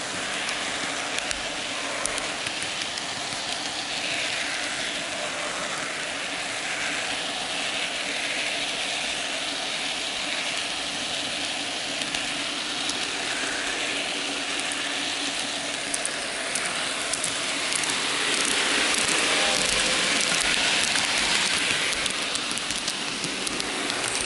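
N gauge model train running along the track: a steady rattling rumble of small metal wheels on the rails, peppered with sharp little clicks, louder for a few seconds in the second half.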